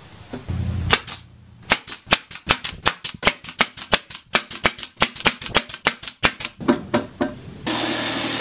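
Pneumatic nail gun firing nails into a pine board in quick succession, about six sharp shots a second for several seconds. Near the end a jigsaw starts cutting the wood with a steady buzz.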